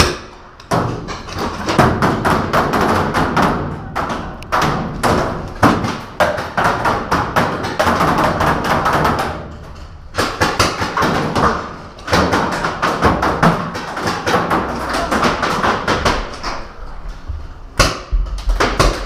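Heavy paintball fire: a dense, irregular stream of pops and smacks from markers firing and balls hitting, many per second, with a few brief lulls.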